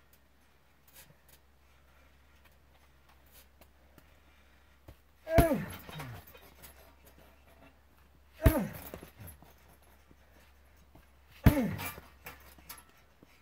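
Heavy punching bag kicked three times, about three seconds apart: each kick lands with a sharp smack, followed by a short sound that falls in pitch.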